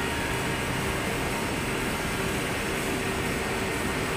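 Steady factory background noise: a constant machinery hum with a faint steady tone, with no distinct knocks or clicks.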